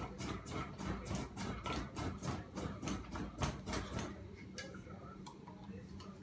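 A mini ceiling fan motor being spun rapidly by hand so that it works as a generator and lights a lamp: a quick run of scraping ticks, about four or five a second. The ticks thin out and stop about five seconds in.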